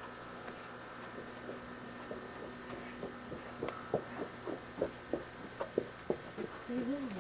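Steady low hum inside a car cabin, then from about halfway a run of quick, light ticks, about three a second. A child's voice starts just before the end.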